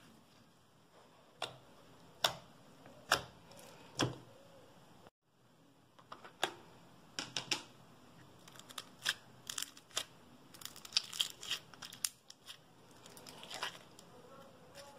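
Slime squeezed and kneaded by hand, giving sharp wet pops and clicks about once a second. After a short break, a denser run of small pops and crackles as a clear plastic slime tub is handled and the slime is peeled out of it.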